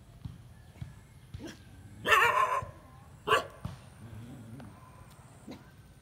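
Dog barking twice: a longer bark about two seconds in and a short sharp one about a second later.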